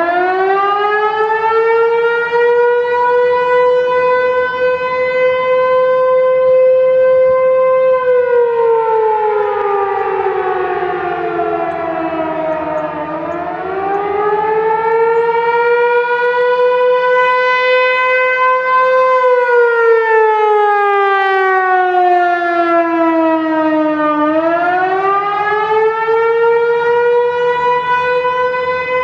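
American Signal T-128 rotating electromechanical siren sounding. It winds up to a steady tone right at the start and holds it. Twice it then falls in pitch over several seconds and winds back up, the rise-and-fall cycling of an attack signal.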